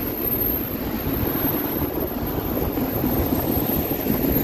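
Autorack cars of a passing CN freight train rolling by: a steady rumble of steel wheels on the rails.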